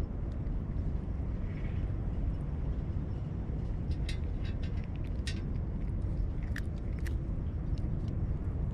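A cat eating from a stainless steel tray: a few short, sharp clicks of chewing and of teeth and tongue against the metal, bunched between about four and seven seconds in. Under them runs a steady low rumble.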